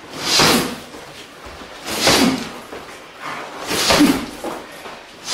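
Knee strikes landing on a free-standing heavy bag: three heavy thumps, evenly spaced a little under two seconds apart.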